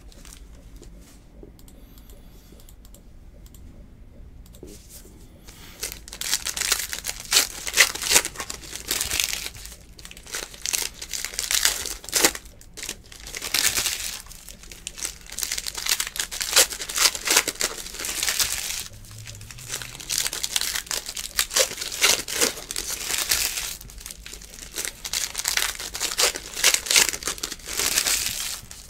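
Foil wrappers of 2019 Panini Legacy Football card packs crinkling and tearing as packs are opened and the cards handled. It is quiet for about the first five seconds, then comes in repeated bursts of rustling.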